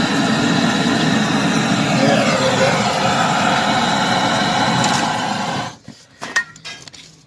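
Handheld gas-cartridge blowtorch burning steadily while heating a refrigerant pipe joint on a freezer compressor to unbraze it. The flame noise cuts off suddenly near the end, followed by a few light clicks and knocks.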